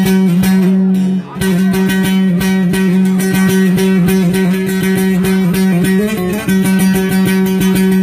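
A bağlama (long-necked Turkish saz) played with fast pick strokes over a steady ringing drone note, a slow bozlak melody, with a brief break about a second in.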